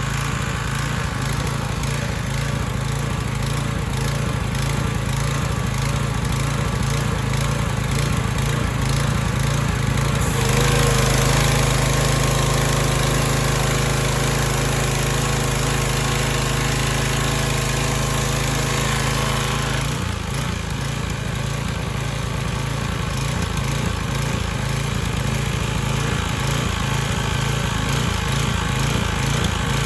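Troy-Bilt 2800 psi pressure washer's small gasoline engine running steadily, freshly started after a carburetor overhaul. From about ten seconds in until about twenty seconds in it runs louder and steadier with a hiss over it, then settles back to its earlier sound.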